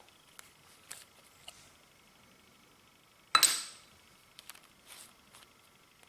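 Clear slime being worked by hand, with eyeshadow mixed into it: a few small clicks and crackles, and one loud sudden pop a little past halfway that fades quickly.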